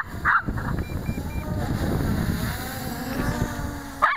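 MJX Bugs 3 quadcopter's brushless motors whirring, their pitch drifting up and down as it maneuvers, under heavy wind rumble on the microphone. Three short high beeps come about a second in.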